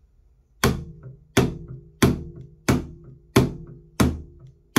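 Double bass slapped rockabilly style: about seven evenly spaced strokes, roughly one and a half a second, each a sharp click of string and hand against the fingerboard with a low plucked note ringing on between strokes.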